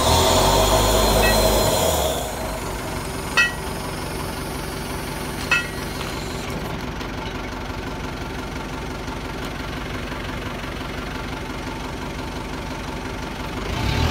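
Rough-terrain crane's diesel engine idling steadily, with a louder mechanical surge for the first two seconds and two short sharp clicks a couple of seconds apart.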